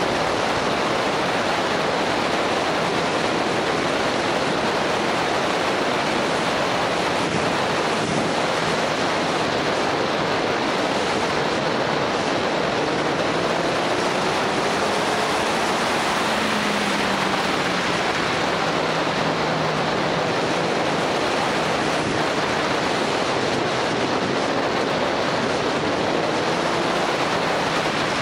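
Wind rushing over the camera's microphone on a moving motorcycle. Beneath it the engine is faintly heard, its pitch rising and falling a little through the bends.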